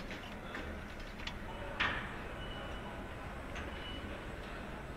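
Steady low rumble in a workshop hall, with a few light clicks and one sharp knock about two seconds in as a yellow metal lifting fixture is fitted onto a machined assembly.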